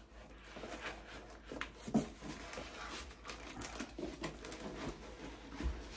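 A cardboard box being opened by hand and its contents slid out: cardboard rubbing and scraping, with a few soft knocks, the sharpest about two seconds in.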